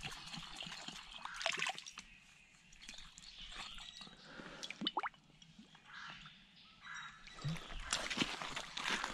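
Water dripping and plopping into a shallow creek, with scattered drops and one clear plop about five seconds in. Near the end a rubber boot splashes through the water.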